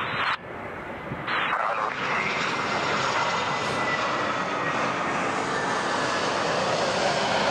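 Jet airliner passing low, its engines a steady rushing noise that swells in about a second in, with a faint whine slowly falling in pitch.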